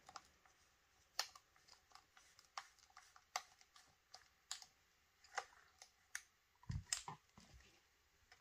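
Faint, scattered clicks and taps of small metal parts being handled, as screws and parts of a paintball marker are sorted and fitted, with two duller knocks late on.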